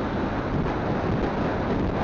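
Steady wind rush buffeting a phone microphone on a moving motorcycle, with the bike's running and road noise underneath.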